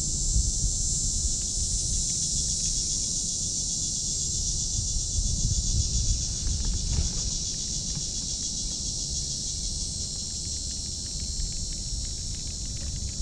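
Steady, high-pitched chorus of insects buzzing with a fast pulsing, over a constant low rumble.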